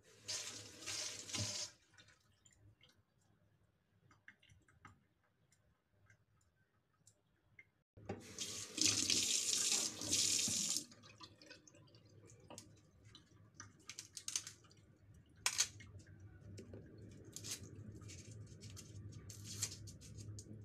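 Kitchen sink tap running in two short spells, each a couple of seconds long. Between and after them come small scattered clicks and scrapes of garlic being peeled by hand on a wooden chopping board, over a low steady hum.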